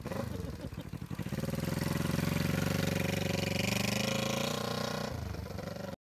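Freshly rebuilt 1973 Honda CB350G's air-cooled parallel-twin engine running. It rises in speed and loudness over the first couple of seconds, holds there, eases back after about five seconds, and then cuts off suddenly.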